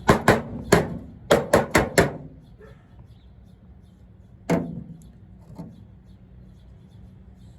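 A quick run of about seven sharp knocks in the first two seconds, then one louder knock about halfway through and a fainter one soon after: hard objects being knocked and set down on a work surface.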